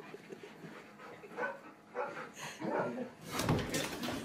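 A golden retriever barking and grumbling in short bursts while it wrestles in play, with a louder scuffling noise near the end.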